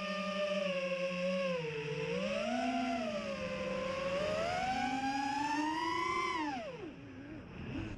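FPV quadcopter's brushless motors and propellers whining, the pitch rising and falling with the throttle. It climbs to its highest about six seconds in, then drops away and goes quieter for about a second as the throttle is cut.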